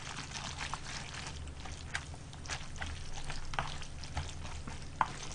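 Wooden chopsticks stirring noodles into their sauce in a bowl: scattered soft clicks and wet squishing, over a low steady hum.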